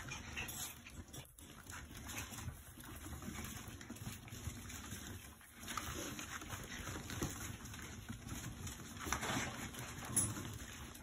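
Schnauzer puppies and their mothers playing, with irregular scuffling and small dog noises and a louder flurry near the end.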